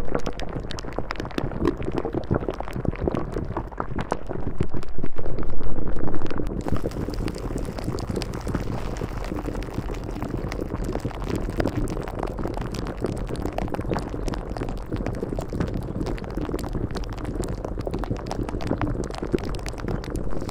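Steady bubbling, water-like noise crowded with small pops, over a low steady hum. More hiss comes in about six and a half seconds in.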